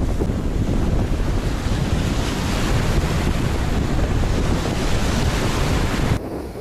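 Strong wind buffeting the microphone over a steady rush of water. It cuts off abruptly near the end with a sharp click.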